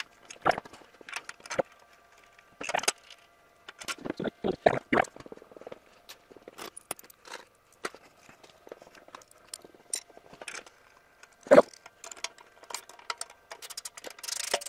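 Irregular metallic clinks, taps and knocks of hands working on a hydraulic press ram and its hose fittings, with one louder knock about three-quarters of the way through. A faint steady hum lies underneath.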